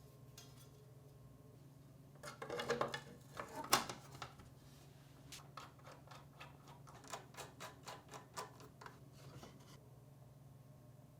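Faint handling of computer parts during a PC build. A couple of seconds in there is a rustling scrape and a sharper click, then a run of light clicks and taps that stops shortly before the end, over a low steady hum.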